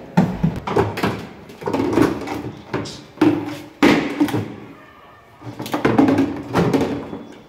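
Knocks and clatter of plastic and metal washing-machine parts being handled and pulled about inside the opened cabinet, with indistinct talk in between.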